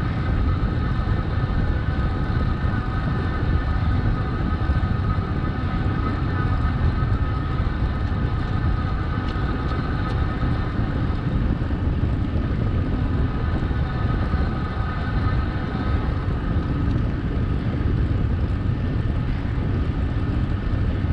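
Wind rushing and buffeting on the microphone of a camera riding along on a moving bicycle, a steady low rumble. A steady mid-pitched whine sits above it and fades about three-quarters of the way through.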